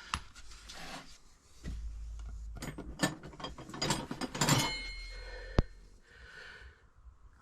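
Metal hand tools being handled on a bench: a run of clicks and rattles, then a short ringing metal clink about four and a half seconds in and a single sharp tick a second later.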